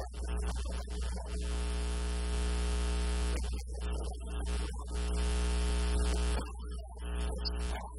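Electrical mains hum on the recording: a steady low hum with a buzz of many even overtones above it, which breaks off briefly a few times.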